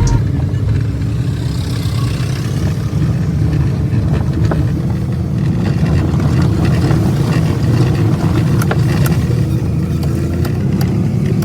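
Maruti 800 car driving, its engine and road noise making a steady low rumble, with occasional light clicks and rattles.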